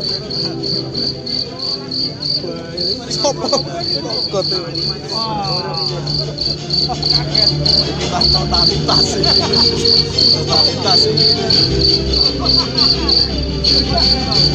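An insect chirping steadily, a high-pitched pulse about three times a second, over fainter wavering sounds and a low hum.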